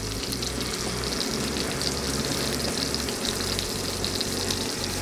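Frying sizzle from hot pans on a gas stove as a chunky green pepper and onion salsa is poured into a hot skillet, a steady crackle throughout. Background music with a low bass line plays underneath.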